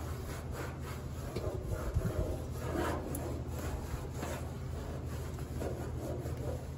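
Cloth rag wiping and rubbing across the sanded steel underside of a 1960 Cadillac hood in irregular scrubbing strokes, over a steady low hum.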